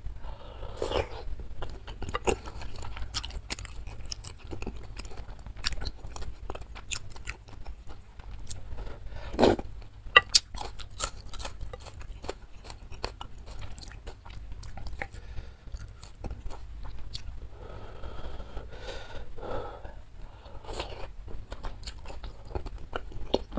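Close-miked eating sounds of spicy instant noodle soup with chewy tapioca meatballs (bakso aci): chewing with wet lip smacks and mouth clicks throughout. There are a few longer slurps of noodles and broth, with a louder one about nine and a half seconds in and more around twenty seconds.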